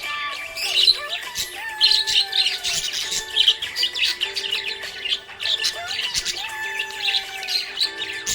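Budgerigars chirping and warbling, a dense run of short high chirps, over background music with held notes.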